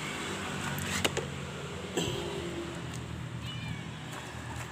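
A cat meowing briefly over a steady low hum, with a sharp click about two seconds in.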